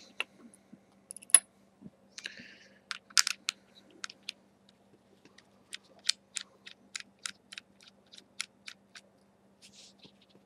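Small sharp clicks of a metal rebuildable atomizer deck being handled and turned in the fingers, scattered at first, then a steady run of about three a second, with a short hiss about two seconds in.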